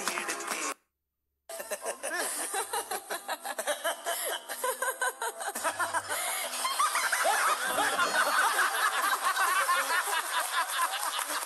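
Music stops under a second in; after a brief silence, loud, choppy laughter follows.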